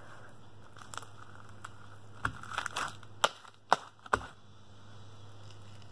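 White slime being stretched and pressed by hand, making a string of sharp pops and clicks, a few at first and then louder and closer together between about two and four seconds in.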